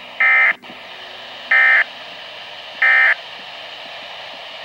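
Three short bursts of SAME digital data tones, the warbling two-tone modem chirp of a NOAA/Weatheradio alert, each about a third of a second and about 1.3 s apart, over steady radio hiss. Their shortness marks them as the end-of-message code that closes an alert segment.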